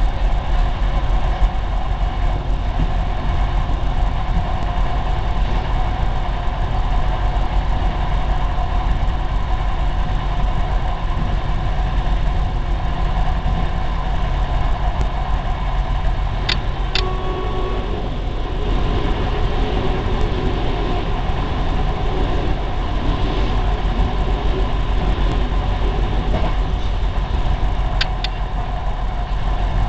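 Arriva SA133 diesel railbus running at speed, heard from inside the passenger cabin: a steady engine and rolling rumble, with a few sharp clicks about halfway through and again near the end.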